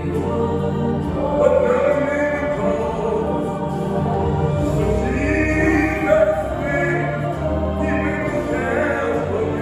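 A man singing a gospel song into a handheld microphone, in long held phrases over sustained low backing notes.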